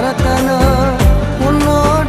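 Background Indian film-style music with a steady beat and a melodic line, likely from a Tamil film song.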